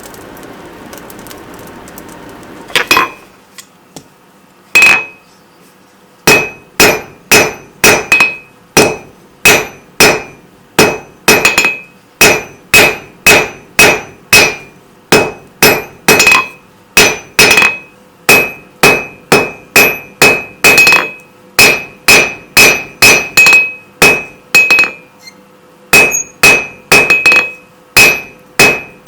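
Rounding hammer striking a hot steel bar on an anvil, each blow with a bright ring from the anvil. After a steady rushing noise at the start, a few single blows come, then a regular run of about two blows a second with a brief pause near the end.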